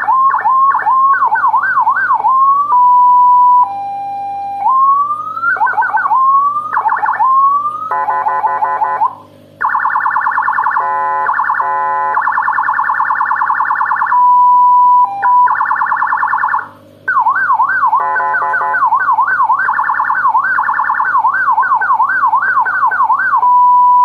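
Landun six-tone 60-watt, 12-volt electronic siren sounding loudly through its chrome horn speaker and switching tones as its buttons are pressed. It runs through fast up-and-down sweeps, short steady tones, slower rising sweeps and a rapid warble, with a brief break at each change.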